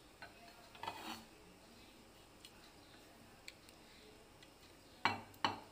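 Spatula tapping and scraping against a ceramic plate and glass bowl as banana slices are pushed off the plate into a creamy dressing: a few faint ticks, then two louder scrapes near the end.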